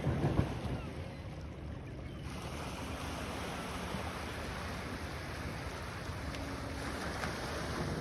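Small lake waves washing onto a pebble shore in a steady surf, with wind buffeting the microphone, strongest in a gust near the start.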